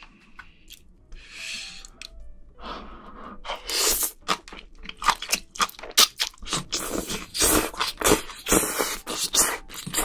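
Close-miked eating sounds: slurping spicy sauce-coated noodles and octopus, then wet chewing. Dense, irregular smacking and squelching clicks begin about two and a half seconds in and run on.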